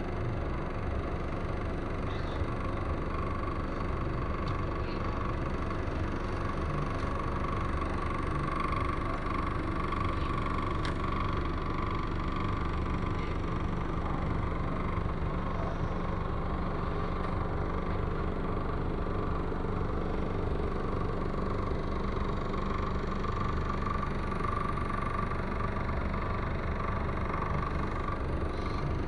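A vehicle's engine running steadily, with an even low drone and a faint steady higher tone above it.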